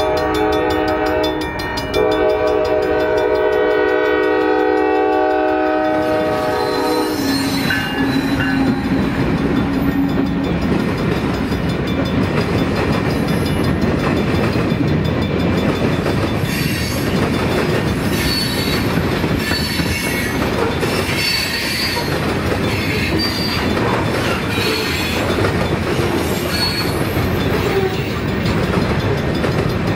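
Freight train locomotive horn sounding a chord in two blasts, cut off about seven seconds in, followed by the train's cars rolling past with a steady rumble and wheels clicking over the rail joints.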